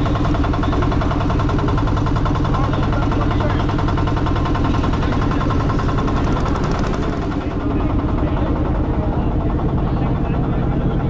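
Motorboat engine running steadily, with a fast, even pulsing.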